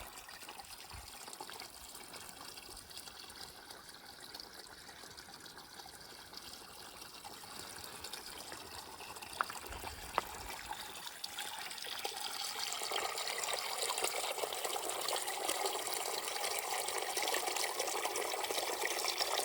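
Running, trickling water as a steady rush that grows louder about twelve seconds in, with two sharp clicks near the middle.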